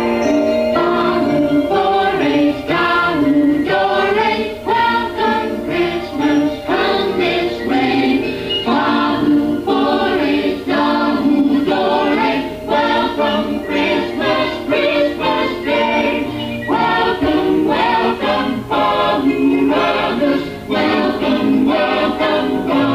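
A song with a choir singing over a steady beat.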